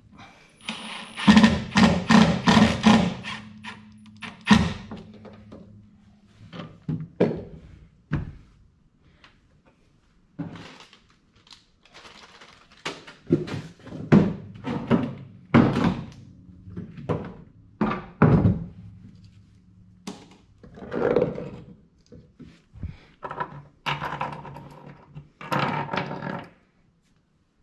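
Cordless impact driver running in short bursts for about the first four seconds, driving the screws that fasten a gooseneck plug into the side of a truck-bed storage box. After that come scattered thunks and knocks as tools and parts are handled and set down in the truck bed.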